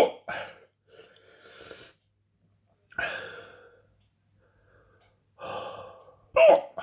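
A man breathing hard and gasping in separate breaths, with a sharp sudden intake about three seconds in and a short voiced gasp near the end. He is reacting to the burning heat of a superhot chili pepper in his mouth.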